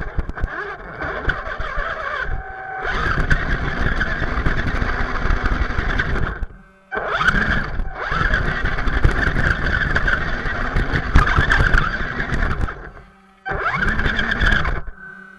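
Electric motor and gear drivetrain of an RC crawler truck whirring and rattling in long bursts as the throttle is applied, dropping out briefly three times between bursts.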